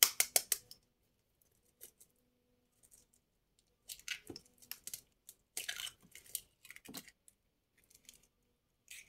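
Hen's eggs cracked by hand into a plastic tub, one after another: short bursts of crackling shell as each is broken and pulled apart, at the start, around four seconds in, and again near the end.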